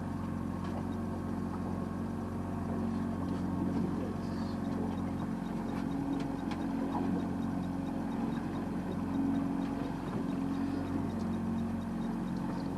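A boat's motor running steadily.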